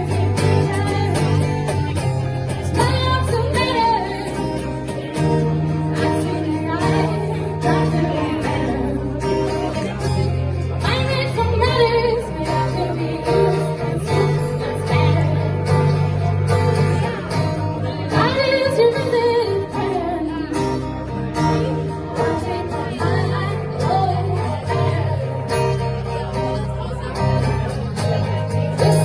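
Live band music: bass and guitar playing under a sung voice line that slides between notes.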